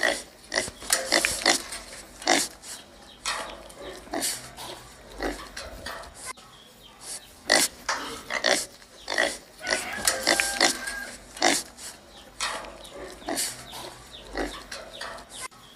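Pig rooting with its snout at the ground, giving an irregular run of short sniffs and snorts, about two a second. About ten seconds in comes a brief pitched call.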